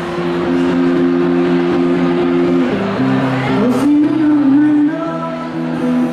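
Live music: a woman singing into a microphone over instrumental accompaniment of held chords, her voice sliding in pitch a few seconds in.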